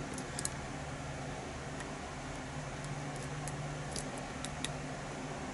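Faint, scattered small clicks of lock-picking tools working the pin stack inside a padlock, over a steady low hum.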